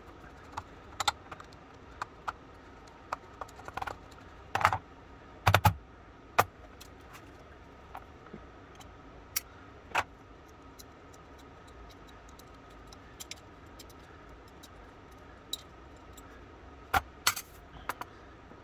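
Scattered metallic clicks and knocks of small hand tools against the steel frame of an antique boot pistol as a seized screw is worked at, the loudest cluster about five seconds in and a few more near the end.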